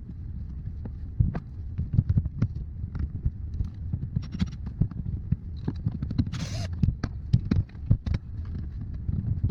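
Irregular metal knocks and clicks of hand tools being worked on a car's rear suspension, over a steady low rumble, with a brief hiss about six and a half seconds in.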